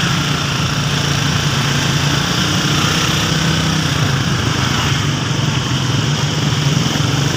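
Small motorcycle engine running steadily as the bike rides slowly along a rough road, with a constant low hum and road noise.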